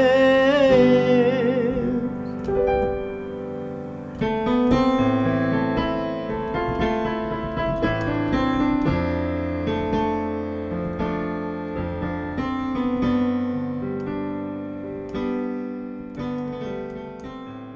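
Song ending: a sung line closes on a held, wavering note about a second in, then a slow keyboard melody plays on alone and fades out at the end.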